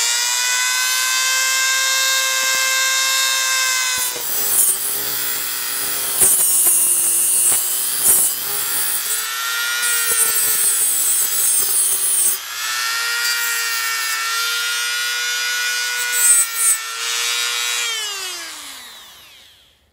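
Dremel rotary tool with a cutoff wheel whining at high speed, then cutting into a metal ignition plate to grind off small bolt stubs: the pitch sags under load and a harsh grinding hiss comes and goes. It runs free again, then spins down near the end.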